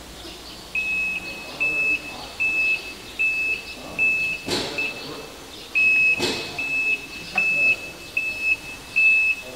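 Electric tricycle's electronic beeper sounding a short, high-pitched beep over and over, roughly one to two a second. Two sharp clicks come a little past the middle.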